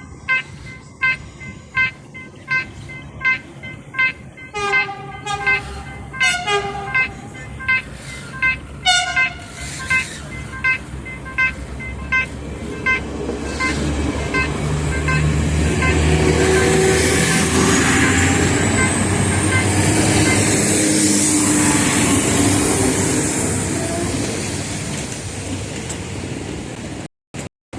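A warning bell pinging about twice a second while a train's horn gives a few short toots. Then a passenger train approaches and passes close by, its engine and wheels rising to a loud rumble and fading away.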